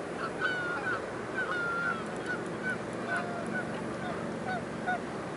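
A flock of geese honking: many short, repeated calls that overlap one another, over a steady low background hiss.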